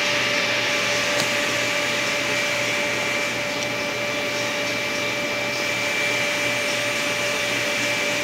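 An electric blower running steadily: a constant rush of air with a few fixed whining tones that do not change.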